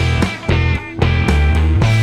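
Background instrumental music with a strong bass line; it drops back briefly within the first second, then resumes.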